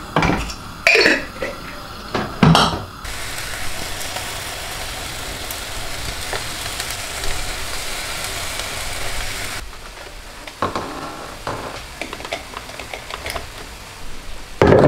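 Seasoning being crumbled over and worked into raw beef and chicken pieces in a pan by hand, with a few knocks of hand and pan in the first few seconds and scattered knocks near the end. A steady hiss fills the middle stretch and cuts off suddenly.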